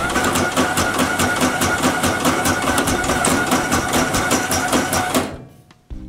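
Ultra Trimmer bud-trimming machine running: a steady motor sound under a fast, even clatter. It starts abruptly and winds down about five seconds in.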